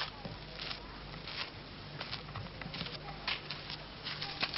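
Footsteps on a dirt path, soft crackly steps about one every 0.7 seconds, with faint bird chirps and a steady low hum underneath.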